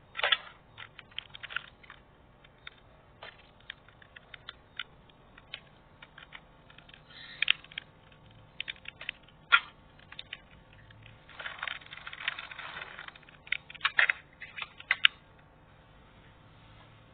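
Slime being squished, making irregular sticky clicks and pops, with a longer run of dense crackling about twelve seconds in.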